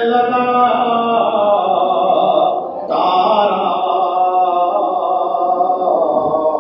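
A man's voice chanting a religious recitation in long, held melodic lines, pausing briefly for breath about three seconds in.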